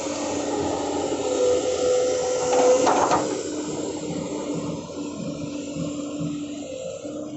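Excavator's diesel engine and hydraulics running, with a steady whine over the engine noise and a brief louder rush of noise about three seconds in.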